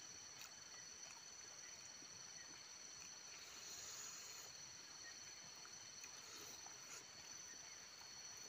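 Faint, steady, high-pitched chirring of insects, two thin tones running together, with a few faint soft clicks.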